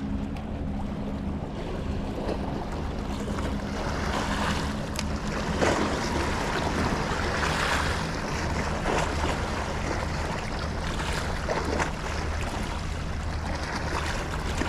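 Sea water washing and splashing at the shore, in surges, over a low steady engine hum from a boat, with wind on the microphone.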